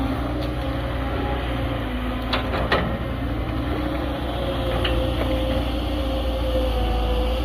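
CAT 320D hydraulic excavator's diesel engine running under load, with a hydraulic whine that rises and falls in pitch as it works. A couple of sharp metallic clanks come about two and a half seconds in.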